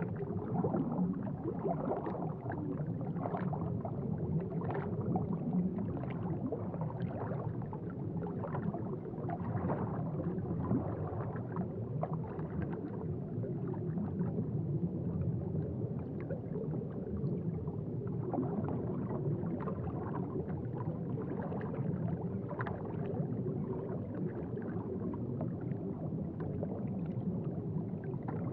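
Aquarium water bubbling and gurgling: a steady low rumble with many small bubble pops throughout.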